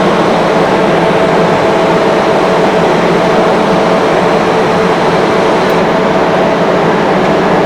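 Rotary screw air compressor running steadily: a loud, even machine hum with a few constant tones over a broad hiss.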